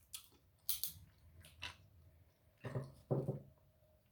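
Messy eating of a seafood boil by hand: scattered sharp clicks and cracks from crab shells, and wet mouth sounds. About three seconds in come two short low-pitched grunt-like sounds.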